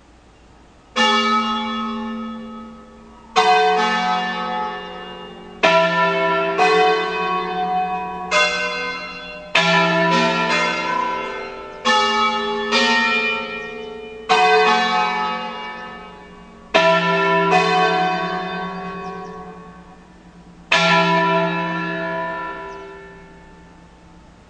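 Ambrosian church bells, a ring of five tuned E, F♯, G♯, A and B, sounding one stroke at a time in an uneven, slow sequence, each stroke ringing on and dying away. It begins about a second in, with about fifteen strokes, the last one left to ring out.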